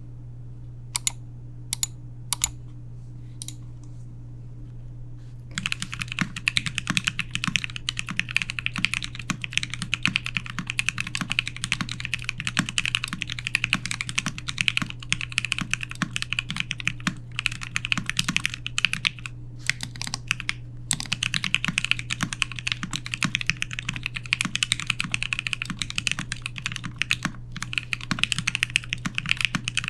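Custom mechanical keyboard with lubed Marshmallow linear switches on a stainless steel plate and PBT keycaps: a few single keystrokes, then continuous fast typing from about five seconds in. A steady low hum sits underneath.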